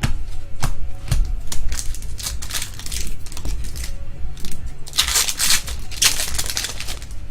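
Trading cards and foil pack wrappers being handled: a string of sharp clicks as cards are flipped and sorted, with two longer crinkling bursts about five and six seconds in.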